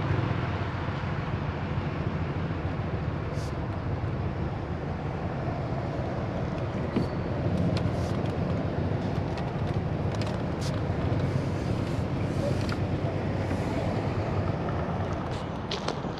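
A car driving at a steady speed: engine hum and road and tyre noise, with a few faint clicks.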